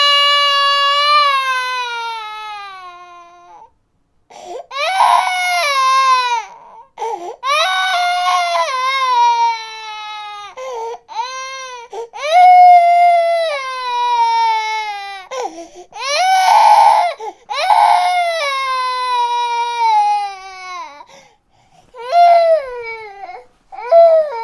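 Baby crying in a run of loud wails, each falling in pitch, separated by short catches of breath, with a full pause about four seconds in.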